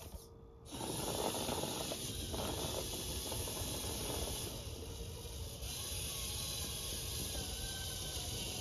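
Steady outdoor background noise with no distinct events, dropping out briefly about half a second in.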